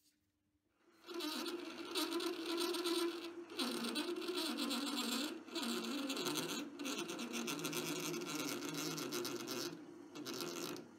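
Hobby metal lathe running with its motor humming steadily while a tool cuts into brass bar stock, parting off a short brass cap. It starts about a second in and has a few brief breaks.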